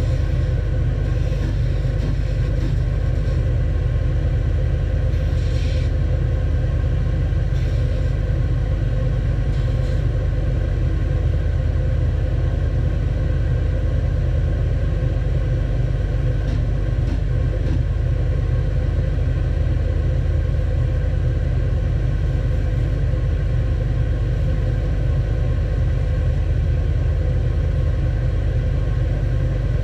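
Stationary edge belt sander running with a steady low hum. In the first several seconds a few brief rasps are heard as small wooden tiles are pressed against the moving belt.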